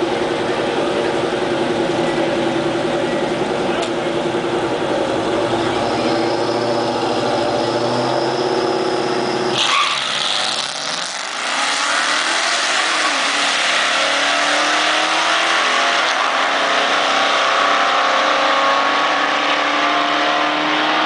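1982 Chevrolet S-10 drag truck with a 5.3-litre V8 holding steady revs, then launching hard about ten seconds in and accelerating away, its engine note climbing steadily.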